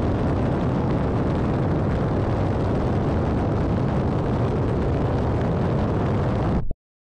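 Airbus H125 (Esquilo AS350 B3e) helicopter running: a steady, dense rumble that cuts off abruptly near the end.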